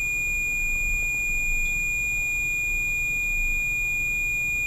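Ghost-hunting proximity sensor, a round canister with a light and a metal antenna, sounding a steady high-pitched electronic alarm tone. It is a trigger that the investigator takes as an answer to her question about the witch who used to live in the house.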